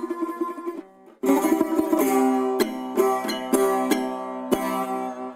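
Music played on a plucked string instrument: fast repeated picking, a brief pause about a second in, then a run of sharp, ringing plucked chords and notes.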